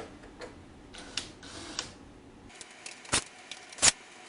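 Scattered sharp clicks and taps of a hand tool working screws on the inverter's circuit boards. A few light clicks come first, then two louder knocks about three and four seconds in.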